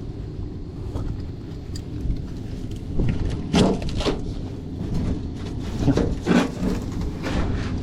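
Scraping and rustling knocks from a broken HVAC duct elbow being handled, with the biggest bursts a few seconds in and again about six seconds in, over a steady low rumble.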